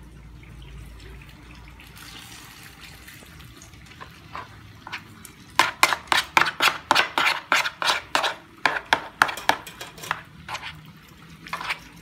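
Metal spoon knocking against a plastic bowl as it stirs flour batter over banana pieces: a fast run of sharp clacks, about five a second, starting about halfway through and lasting some four seconds, then one more near the end.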